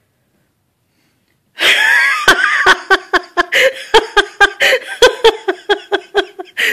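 Near silence for about a second and a half, then a person laughing hard in quick repeated bursts, about three or four a second.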